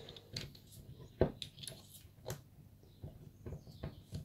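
Small metal clicks and scrapes of a CZ 452/455 .22 rimfire rifle bolt's parts being turned and pushed by hand while being worked back into place, with a sharper click about a second in and another about two seconds in.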